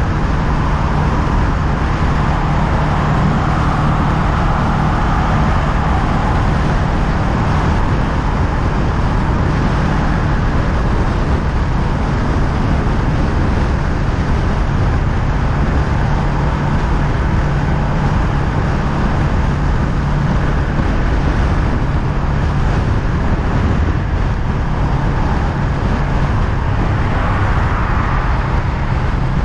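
Honda Rebel 500 parallel-twin engine running at a steady cruising speed, a constant low engine note under a continuous rushing noise.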